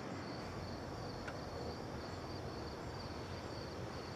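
Crickets chirping in an even rhythm, about two chirps a second, over a low steady hiss of night ambience.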